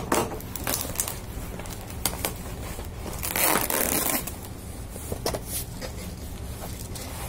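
A cardboard box and its taped packaging being torn open by hand: scattered crackles and crinkles of cardboard, with one longer, loud tearing rip about three and a half seconds in, over a steady low hum.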